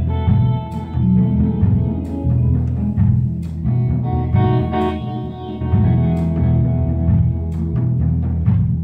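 A live instrumental band playing: electric guitars ringing sustained notes over electric bass and a drum kit, with drum and cymbal hits through it.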